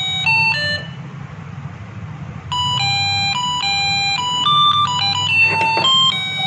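UM66 melody IC playing its doorbell tune through a small 8-ohm loudspeaker driven by a BC547 transistor: steady electronic beeping notes stepping from pitch to pitch. The tune stops about a second in, and after a pause of about a second and a half it starts over from the beginning, over a low hum.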